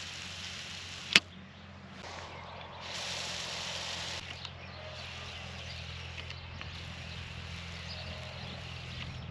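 Herbicide sprayer at work on thistles: spells of hissing spray over a steady low hum, with one sharp click about a second in.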